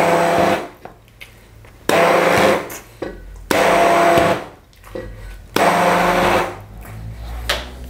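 Stick (immersion) hand blender puréeing chickpeas into hummus, run in four short pulses of under a second each about every one and a half seconds. Each pulse carries a steady motor whine.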